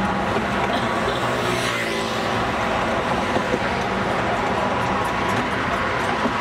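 Traffic on a busy multi-lane highway, with the steady rush of cars going past close by; one car passes with a falling pitch about two seconds in. A steady engine hum runs underneath.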